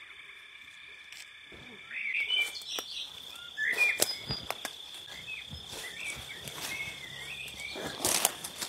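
Woodland ambience: an insect's steady high-pitched buzz, short bird chirps, and brief clicks and rustles in dry leaf litter and undergrowth, with a louder rustle near the end.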